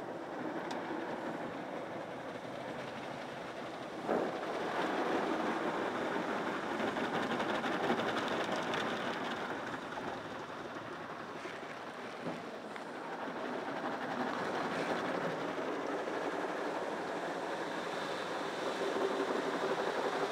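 Automatic car wash heard from inside the car: rotating wash brushes scrubbing over the windows and body while water sprays, a steady rushing and swishing that gets louder with a knock about four seconds in.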